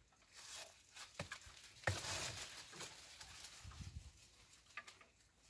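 Faint rustling of persimmon tree leaves in a breeze that swells about half a second in and dies away after about four seconds, with scattered light ticks and taps.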